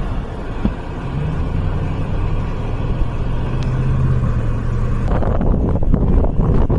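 A motor vehicle running with a steady low hum. About five seconds in, the hum gives way to gusty wind noise buffeting the microphone.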